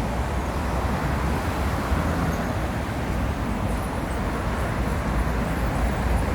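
Steady road traffic noise on a city street: a continuous low rumble with a hiss above it, no single event standing out.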